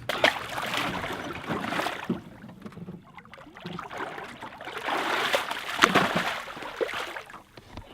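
Water splashing beside a boat as a released shark thrashes off, in two bouts with a few sharp slaps.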